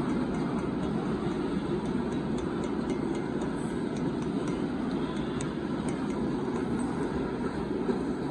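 Loaded freight gondola cars of a rock train rolling past, a steady rumble of steel wheels on the rails with a few faint scattered clicks.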